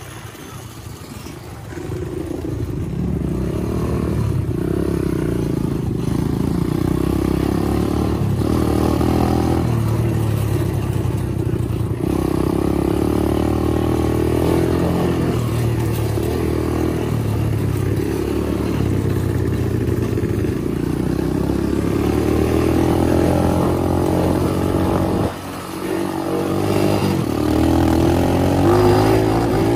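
Syx Moto 125cc pit bike's single-cylinder four-stroke engine running under throttle while being ridden. It picks up about two seconds in and holds with small rises and falls in pitch, dips briefly near the end, then pulls again.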